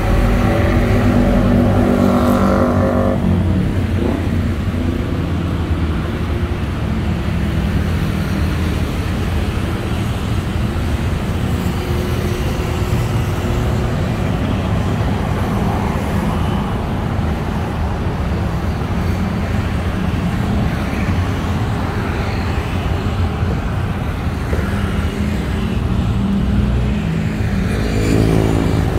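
Heavy traffic on a busy city road: a continuous rumble of engines and tyres. One vehicle's engine is loud and close for the first three seconds, then cuts off suddenly, and another engine grows louder near the end.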